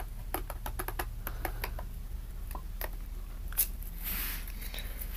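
Light, irregular clicks and taps from hands handling a laptop and its plastic packaging, with one sharper click about three and a half seconds in and a short plastic rustle just after.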